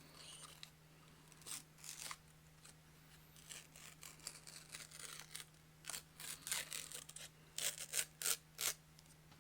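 Crinkling and tearing of the wrapper on a Klondike ice cream cone as it is peeled off by hand, in irregular rustles, with four sharper, louder crackles near the end.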